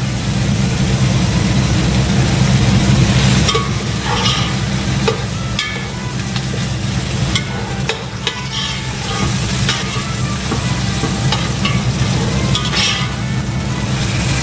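Meat being stirred in a large cooking pot with a metal ladle: intermittent scrapes and clinks of the utensil against the pot over a steady frying sizzle, with a continuous low hum underneath.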